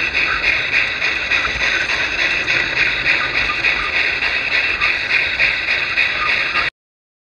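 G-gauge garden railway train running on the track: a steady, loud clattering hiss with a fine regular pulse, which cuts off suddenly near the end.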